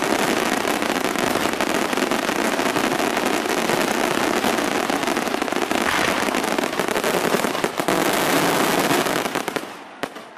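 Fireworks barrage: a dense, unbroken run of rapid bangs and crackling, the closing salvo of a display. It dies away near the end, leaving a few last isolated bangs.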